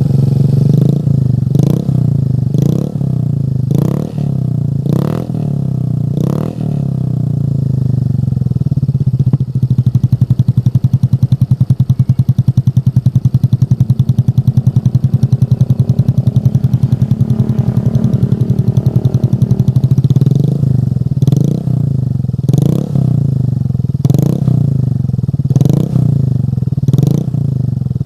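Motorcycle with an aftermarket racing exhaust, idling with repeated short throttle blips about once a second. In the middle it settles into a steady idle for about ten seconds, then the quick revs start again near the end.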